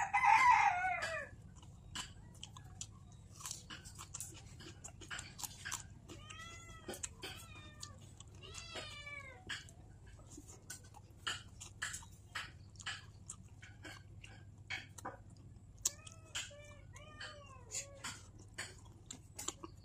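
A cat meowing: one loud call right at the start, then softer rising-and-falling mews a few more times. Under it, steady wet chewing and lip-smacking clicks from someone eating.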